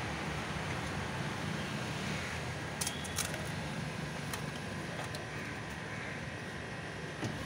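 Steady street background noise with a few light, sharp clicks, about three and four seconds in and again near the end, as crisp hollow puris are cracked open by hand and set into a foil tray.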